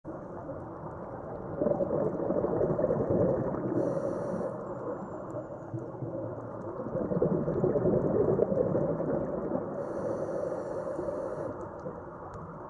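Scuba diver breathing through a regulator underwater: two long swells of bubbling exhalation, each followed by a hissing inhalation, about four and ten seconds in.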